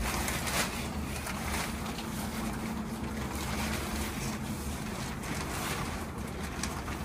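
Wind blowing across the microphone, a steady rushing noise with a low rumble, and a few brief louder rustles of waterproof fabric covers being pulled over outdoor cushions.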